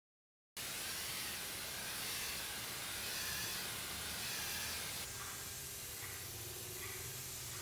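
Air-fed paint spray gun hissing steadily as it sprays paint. The hiss starts about half a second in and drops slightly about five seconds in.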